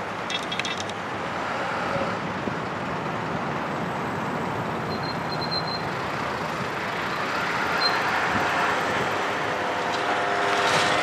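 Steady road-traffic noise, an even rumble and hiss with no single vehicle standing out, slowly growing louder toward the end.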